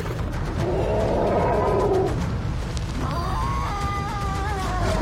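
African elephant trumpeting. A harsh, noisy blast comes in the first two seconds, then a rising trumpet call about three seconds in, held with a waver to the end, over a low rumble.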